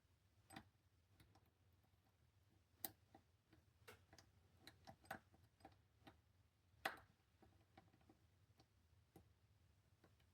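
Faint, irregular clicks and ticks of a lock pick probing the pins of a Master Lock 410 lockout padlock under tension, the core believed to be in a false set, with two louder clicks about three and seven seconds in.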